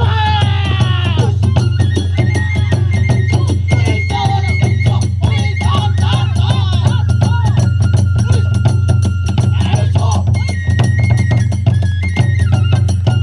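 Hiroshima kagura hayashi music: fast, dense drum and hand-cymbal strokes under a flute holding and stepping between high notes. A chanting voice trails off in the first second or so.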